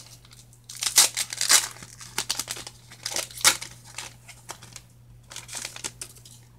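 Pokémon TCG Guardians Rising booster pack being torn open, its foil wrapper ripping and crinkling in a run of irregular sharp crackles, loudest about a second in and again about three and a half seconds in.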